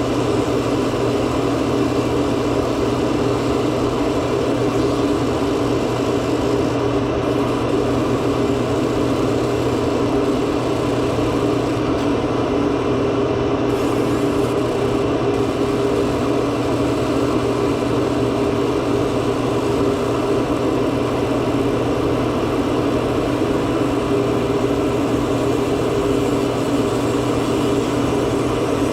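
A steady, unchanging machine hum that stays at one pitch throughout.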